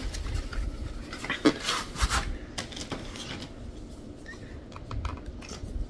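Light clicks, taps and rustling as a boxed makeup palette and its packaging are handled.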